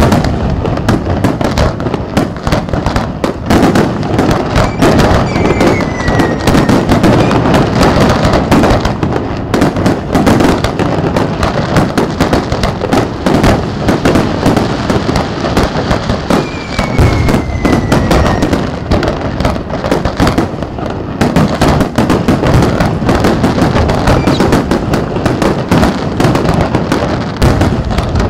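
Aerial fireworks bursting in a loud, continuous barrage: overlapping bangs, many a second, with no let-up.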